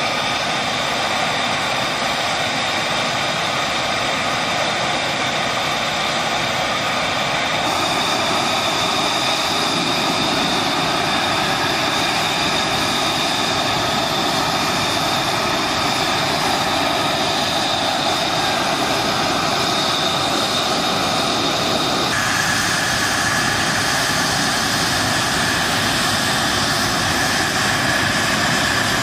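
F-35A fighters' Pratt & Whitney F135 turbofan engines running on the ground, a loud steady jet whine with a high tone over a broad rush. The whine's pitch shifts abruptly about eight seconds in and again near three quarters of the way through.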